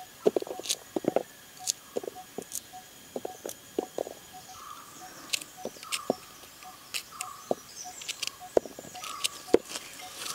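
Small knife slicing through tender, fresh okra pods held in the hand: a run of short, sharp cuts at an irregular pace. Birds call faintly in the background.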